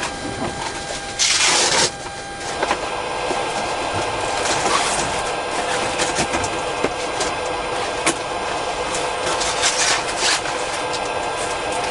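Boeing 777-200 flight deck powering up on APU electrical power: a steady hum and hiss with a few faint steady tones, a short loud burst of hiss about a second in, and scattered sharp clicks as the avionics come online.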